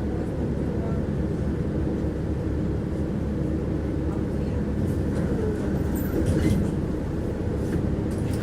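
A tram running along its rails, heard from inside the car: a steady low rumble of wheels on track.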